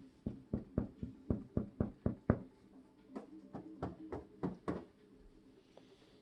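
An action film playing on a television: a run of sharp bangs about three a second, a short pause about two and a half seconds in, then a second run, over a faint steady hum.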